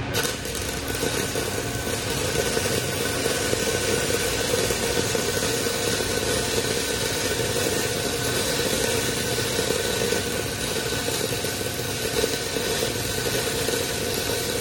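Stick-welding arc burning a 3/32-inch E6010 rod, a steady crackling hiss struck abruptly at the start and held without a break while a tack weld is laid on a pipe saddle branch joint.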